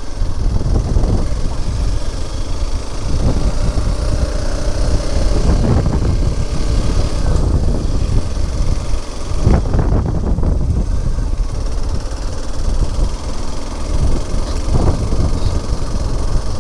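Motorcycle running as it is ridden along, with a loud, uneven low rumble of wind on the microphone over the engine.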